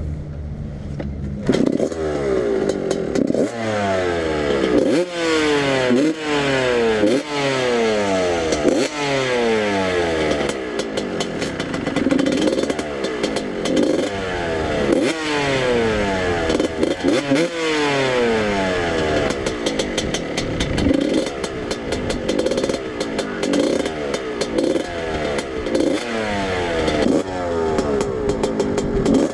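Dirt bike engine being ridden, revving up and dropping back over and over as it accelerates and shifts.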